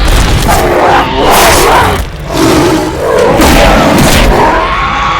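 Loud creature roars and cries that waver in pitch, over heavy low booms, added as sound effects. There are two main bouts, the second rising near the end.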